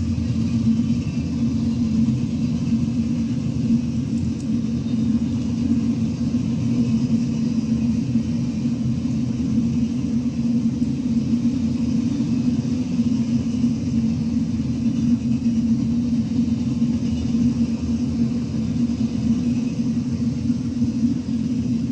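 CSX coal train's open hopper cars rolling past on the rails: a steady, low, even sound of wheels on track with no distinct clicks or horn.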